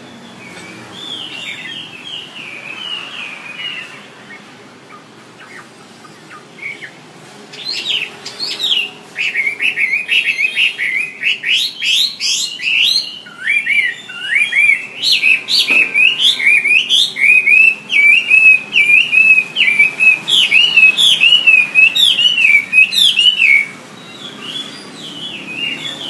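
Chinese hwamei singing: a few soft phrases, then a loud, long song of fast, varied repeated notes that starts about a quarter of the way in and breaks off a couple of seconds before the end.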